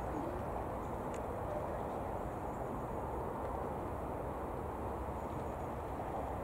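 Steady, even rumble of airliner engines at taxi power, heard from a distance.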